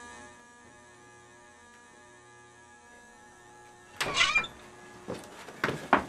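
A quiet, steady hum of several held tones. About four seconds in it gives way to a sudden loud, rough burst of noise, then a few sharp knocks.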